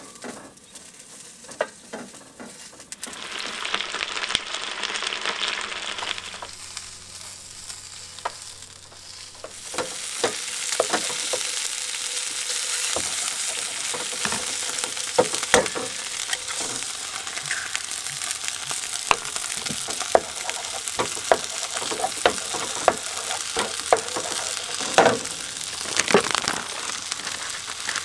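Sausages sizzling in a frying pan, turned with a wooden spoon that clicks and scrapes against the pan. The sizzle is faint at first and becomes loud and steady about ten seconds in.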